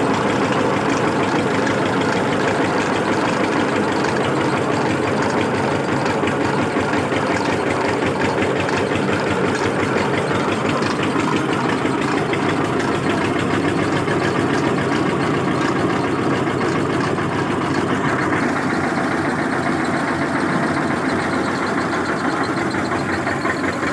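Tractor diesel engine running steadily, driving a mustard-seed oil expeller through a shaft, with a fast, even beat.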